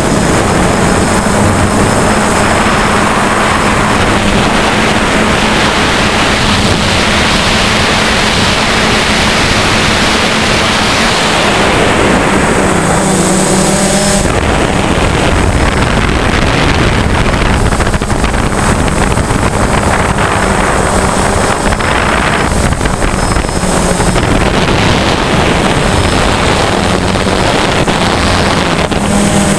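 DJI Phantom quadcopter's motors and propellers running in flight, heard from its own onboard camera: a steady hum with rushing air noise that swells and eases as the drone manoeuvres.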